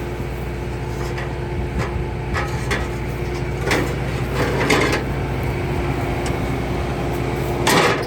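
Combine harvester engine running steadily, heard from inside the cab, with a handful of short knocks and clatters, the loudest one near the end.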